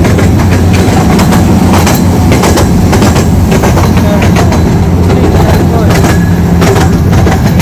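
Train running on rails: a steady low rumble with irregular sharp clicks and knocks throughout.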